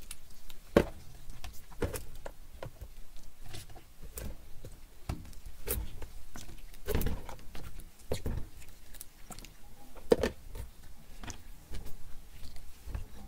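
Irregular light clicks and knocks of handling: snail shells being set down and shifted in a plastic packaging tray by gloved hands. Two louder knocks come just under a second in and about ten seconds in.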